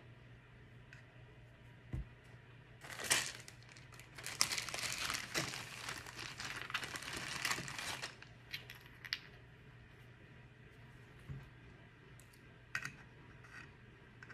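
Rustling and crinkling from something being handled, lasting about five seconds from roughly three seconds in, with a few light taps and clicks of toys being set down before and after.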